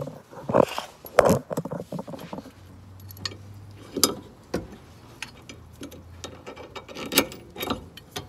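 Irregular metallic clinks and knocks of bolts, an end link and hand tools being handled while a rear sway bar is fitted under a car, with a few sharper knocks among lighter rattling.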